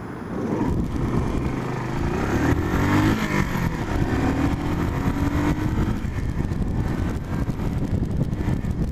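Car on the move: steady engine and road noise, with the engine note rising and shifting about two to three seconds in.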